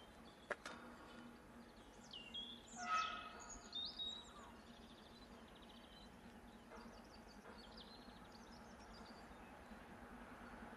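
Small birds chirping and singing in short phrases over a faint steady background hum, with one louder call about three seconds in.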